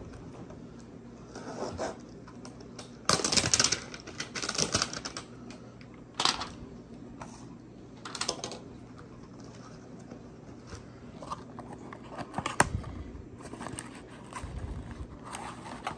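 A cardboard trading-card hanger box being handled and torn open. Irregular rustles, crinkles and taps, the loudest burst about three to four seconds in, with sharp clicks about twelve seconds in.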